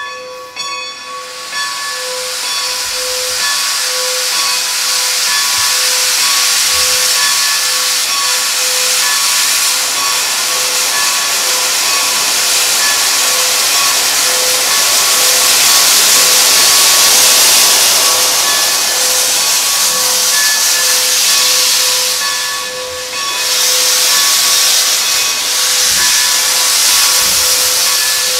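Baldwin 2-10-0 Decapod steam locomotive No. 90 venting steam in a loud, steady hiss that briefly drops off about three-quarters of the way through. Under the hiss a bell-like tone rings at a steady pace, about once a second.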